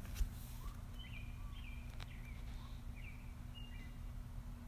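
Birds chirping faintly in the background, a few short stepped calls, over a steady low hum. A sharp click comes just after the start and a fainter one about two seconds in.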